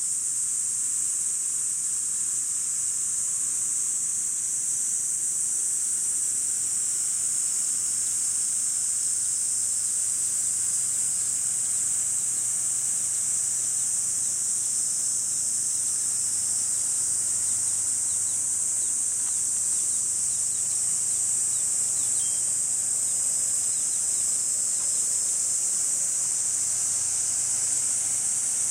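A chorus of cicadas buzzing steadily, one high, even, unbroken sizzle with no pauses.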